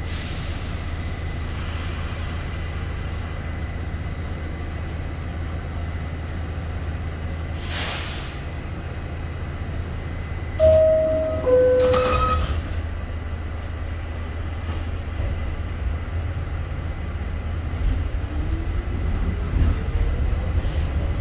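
New York City subway train standing in a station with a steady low rumble and a short hiss. About halfway through comes the two-note falling door chime, followed by the doors closing. Near the end the traction motors' whine rises as the train pulls away.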